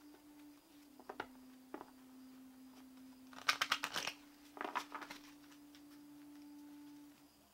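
A deck of oracle cards being shuffled by hand: a few light taps, then two quick flurries of clicking cards about three and a half and four and a half seconds in. A faint steady low tone sounds underneath, dipping slightly in pitch for a couple of seconds and stopping just before the end.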